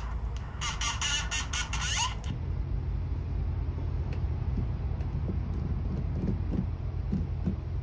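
Small speaker of a home-built sound-bending synth playing back a recorded, pitch-bent sound as a crackly, buzzing noise for about two seconds, then cutting off abruptly. After that, a steady low hum with a few faint ticks.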